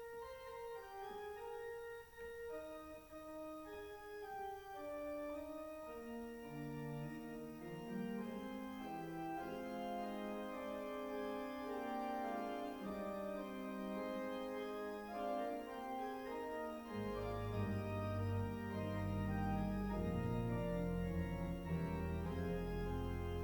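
Organ playing slow held chords. It starts in the upper range, lower notes join about six seconds in, and a deep bass comes in about seventeen seconds in as the music grows louder.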